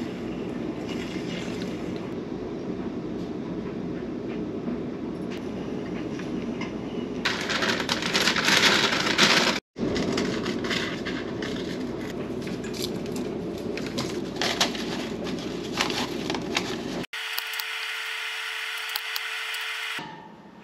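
Silicone spatula scraping and stirring batter in a stainless steel mixing bowl, then paper rustling and scissors snipping through parchment paper, over a steady low hum. Near the end a short stretch holds a steady tone.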